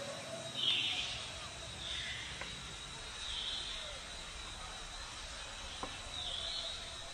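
Outdoor ambience: a steady high, thin insect-like tone, with four short high-pitched calls and a couple of faint clicks.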